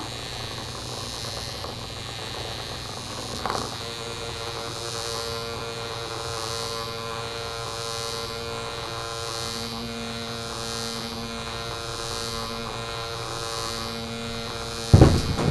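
Small battery-powered robotic bug toy buzzing steadily with a constant hum as it skitters over a mat, with a brief knock about three and a half seconds in.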